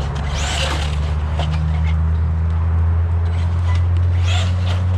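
ARRMA Notorious 1/8-scale RC basher being driven, its brushless motor whining briefly up and down in pitch twice as it accelerates and lets off, with scattered clicks and scrapes from the car. A steady low hum runs underneath.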